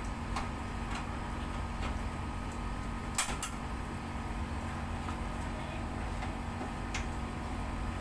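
Scattered light clicks of a screwdriver and hands on the sheet-metal casing of a Panasonic inverter air-conditioner outdoor unit being taken apart, with a sharper double clatter about three seconds in and another click near the end, over a steady low rumble.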